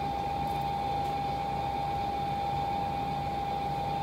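Steady room tone: a constant hiss with an unchanging mid-pitched hum running under it.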